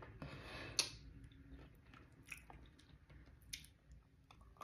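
Faint wet chewing and sticky mouth sounds from eating sauced, crispy fried chicken wings, with a few soft clicks.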